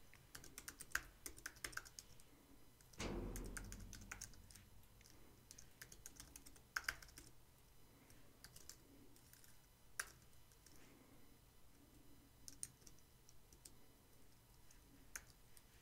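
Faint typing on a computer keyboard: scattered keystroke clicks in short runs. A dull low thump comes about three seconds in and is the loudest sound.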